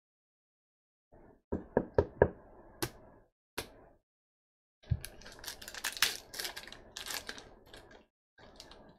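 A few sharp taps as a card in a plastic toploader and stacks of cards are handled and set down on a table. From about five seconds in comes the crinkling of a trading-card pack wrapper being torn open.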